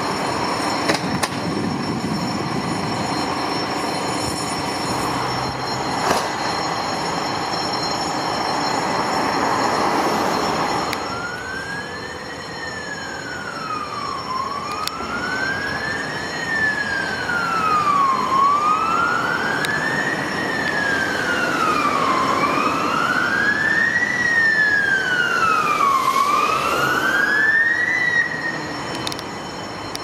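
Fire engine's electronic wail siren, starting about eleven seconds in and sweeping slowly up and down, about four seconds for each rise and fall, then stopping just before the end. Before it, only a steady rushing noise.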